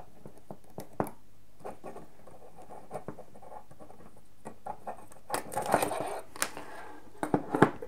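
Small clicks and rustling of hands handling a wired mouse circuit board in a helping-hands clamp and its cable, with a cluster of louder clicks and rubbing a little past the middle and a few sharp clicks near the end.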